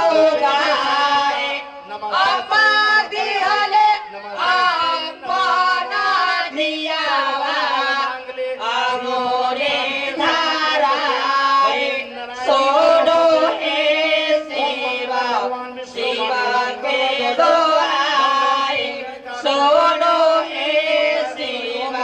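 A man sings a Bhojpuri devotional folk song through a PA system. A harmonium accompanies him, sustaining a steady low drone under the voice.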